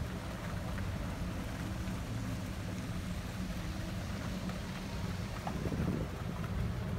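Steady low rumble of a vehicle driving along a paved campground road.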